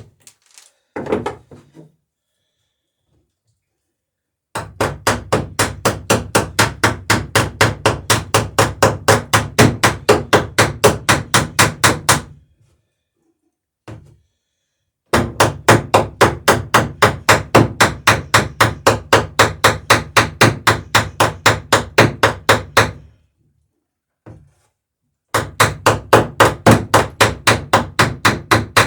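Hammer peening rivets on a wooden boat's sheer strake: rapid, even blows at about five a second, in three long runs separated by short pauses, with a few single knocks in the gaps.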